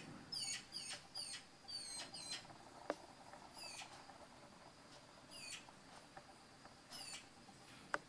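Eurasian magpie fledgling begging for food: thin, high-pitched squeaky calls, each falling in pitch, rapidly repeated for the first couple of seconds, then single calls every second or two. One sharp click about three seconds in.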